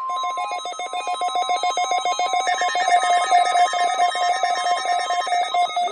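NOAA Weather Radio warning alarm tone: a steady 1050 Hz tone that cuts off about five and a half seconds in. It is overlaid by a rapid, evenly pulsing electronic warble, the alert that sounds for a Required Weekly Test.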